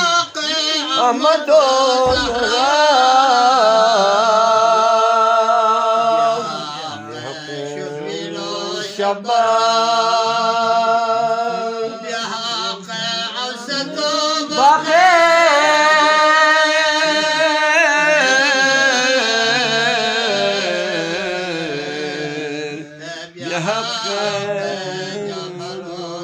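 A man singing a devotional Sufi qasida in long, drawn-out notes that waver and glide, climbing sharply in pitch about fifteen seconds in.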